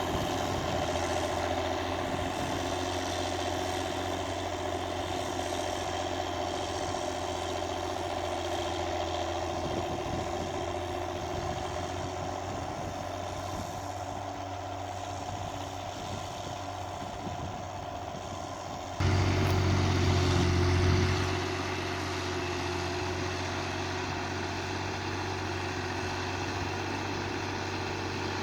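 Case 1694 tractor's six-cylinder diesel engine running steadily. About two-thirds of the way through the sound changes abruptly, louder for a couple of seconds and then steady again with a different tone.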